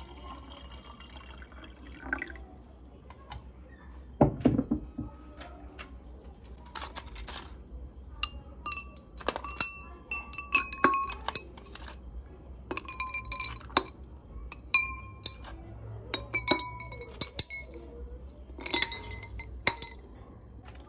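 Glassware clinking: a series of light knocks, many ringing briefly, with a heavier thump about four seconds in.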